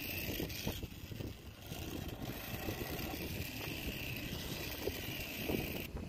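Wind blowing across the microphone, an uneven low rumble under a steady hiss.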